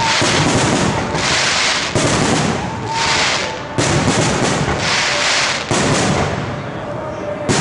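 Aerial firework shells bursting one after another, a sharp bang roughly every two seconds, each followed by a fading sizzling hiss of the falling stars.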